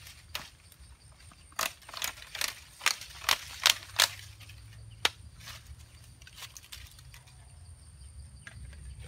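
Plant stems and dry leaves snapping and crackling as they are pulled and broken by hand in undergrowth: a run of sharp snaps in the first half, the last about five seconds in, then quieter rustling.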